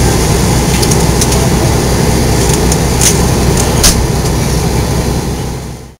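Ambulance engine idling with a loud, steady low rumble. A wheeled stretcher is loaded into the back with a few sharp clicks and a knock, the loudest about four seconds in. The sound fades out in the last half second.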